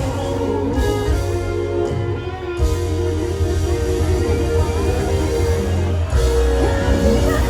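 Live band music played over a PA, a guitar-led instrumental passage over steady bass and drums; a singing voice comes in near the end.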